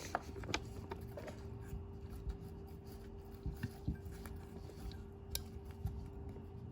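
Light scattered clicks and rubbing from small parts being handled as rubber washers are fitted onto a cruise control switch assembly, over a steady low hum.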